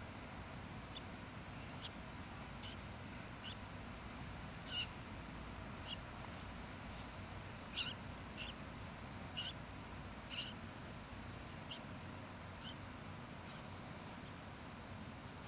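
An animal's short, high-pitched squeaks or chirps, about fifteen of them roughly a second apart, two louder ones near the middle, over a steady low hiss.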